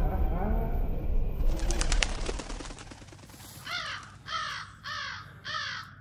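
A crow cawing four times in quick succession in the second half, each caw harsh and falling in pitch. Before the caws there is a short stretch of a person's voice and a burst of clicking.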